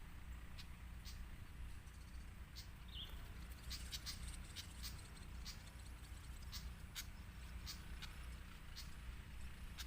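Pied fantail calls at the nest: scattered short sharp chips, bunched into a quick run about four seconds in, over a steady low rumble.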